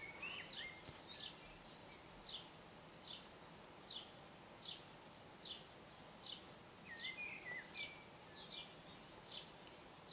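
Faint, repeated short high chirps from a small songbird, about one note every 0.8 seconds, with a brief warbling phrase about seven seconds in, over steady outdoor background hiss.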